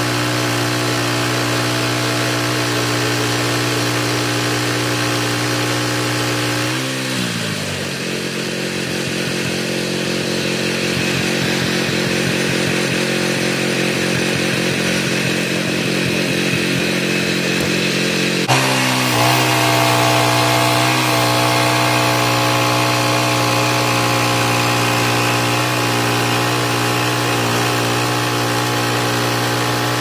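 Portable band sawmill's petrol engine running at high speed, slowing to a lower idle about seven seconds in and revving back up again about eighteen seconds in.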